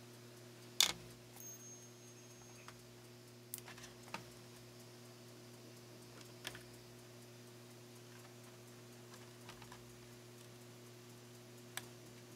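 Scattered light clicks and taps of hands handling wires and small plastic spring clamps, the sharpest about a second in, over a steady low electrical hum.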